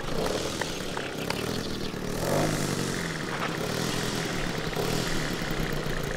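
Engine and propeller of a radio-controlled Fairchild PT-26 scale model running at low throttle while taxiing. A brief throttle rise comes about two seconds in.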